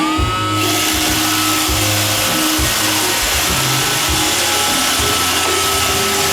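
iRobot Roomba 530 robot vacuum starting its cleaning run: the vacuum motor spins up with a rising whine at the very start, then runs steadily with a high whine over a hiss, along with the rumble of its brushes and drive.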